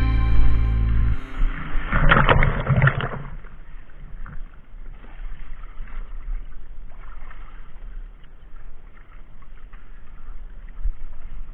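Water splashing and sloshing around a windsurf foil board and rider, muffled. A loud splash comes about two seconds in, then a quieter, uneven wash of water.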